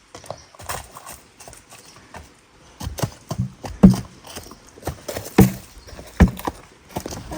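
Irregular hard knocks and clacks, several with gaps between them, the loudest about four, five and a half and six seconds in.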